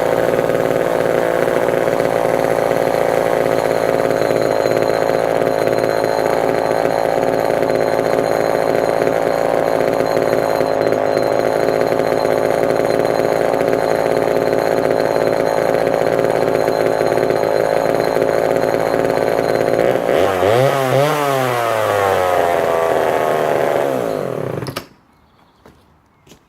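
Homelite Super XL two-stroke chainsaw running steadily at a fast idle, the owner's sign of a carburation or fuel pickup problem. About twenty seconds in its engine speed swings up and back down, and a few seconds later the engine cuts out suddenly.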